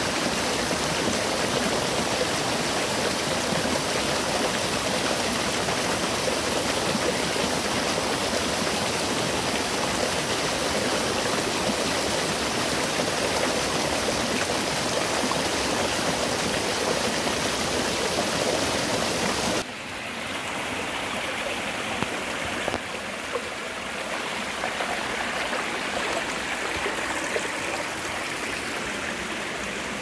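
Mountain valley stream rushing steadily over rocks. About two-thirds of the way through it cuts abruptly to a quieter, softer flow of water, with a few faint clicks.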